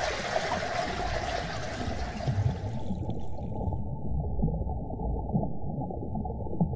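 Underwater ambience sound effect: a bubbling, gurgling water rumble. About three seconds in it turns duller as its higher part falls away, leaving a muffled low rumble with a few small pops.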